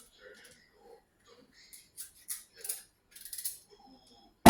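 A knife peeling the skin off a pumpkin in short, separate scraping strokes, then a loud thump near the end.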